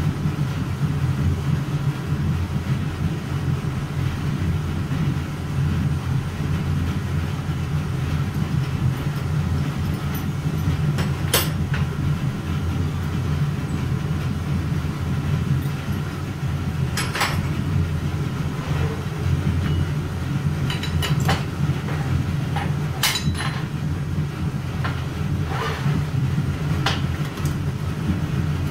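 Steady low roar of foundry equipment running, most likely the aluminium melting furnace's burner blower. A few sharp metallic knocks and clinks are scattered through the second half, from work at the casting mold.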